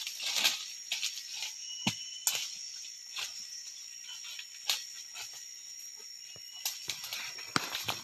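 Footsteps crunching through dry leaf litter, with twigs snapping at irregular moments, over a steady high-pitched drone of forest insects.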